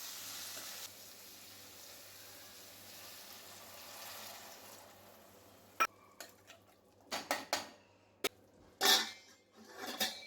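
Food sizzling in a frying pan, a steady hiss that fades out over about five seconds. Then a spoon clinks and knocks against the pan several times.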